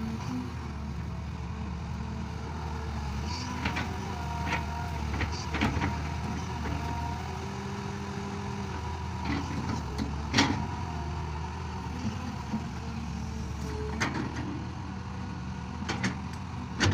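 A farm tractor's engine running steadily, with scattered sharp clanks and knocks over it.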